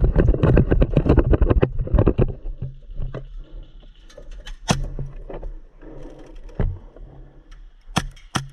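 Rapid clattering and rustling of gear and footsteps for about two seconds, then scattered knocks with a few sharp snaps, one about halfway and two near the end.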